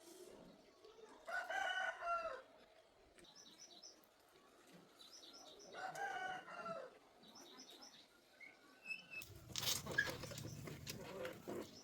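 A rooster crowing twice, about four seconds apart, with small birds chirping faintly in between. Near the end comes a louder stretch of rustling and clatter with a low rumble.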